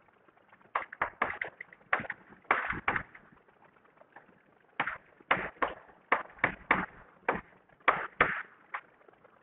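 Chalk writing on a chalkboard: a quick run of short taps and scrapes, one per stroke, in two bursts with a pause of about two seconds between them.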